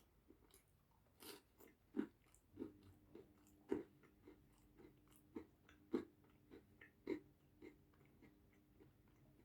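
A person chewing and biting pizza close to the microphone: irregular wet mouth smacks and crunches, with a few louder bites.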